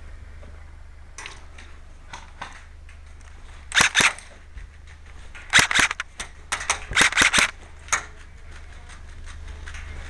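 Airsoft guns firing in short bursts of sharp snapping shots, with the loudest bursts about four seconds in and again between about five and a half and seven and a half seconds.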